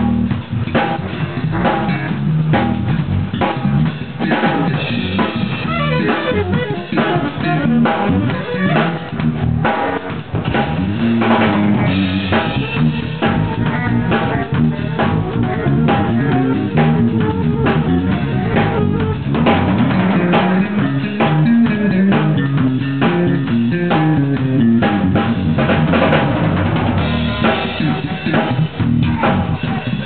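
A band playing live: an electric bass guitar runs a moving bass line over a drum kit keeping a steady beat.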